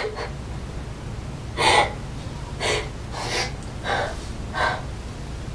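A woman gasping for breath, about five sharp gasps roughly two-thirds of a second apart, the first of them the loudest, over a low steady hum.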